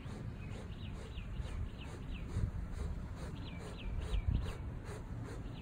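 A small bird chirping in quick runs of short, high, downward-sweeping notes, over a steady low rumble, with a soft low bump about four seconds in.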